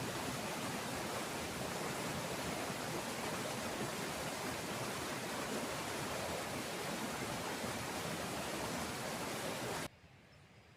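Steady rush of a waterfall's falling water. It cuts off abruptly near the end, leaving a much quieter background with a faint thin high tone.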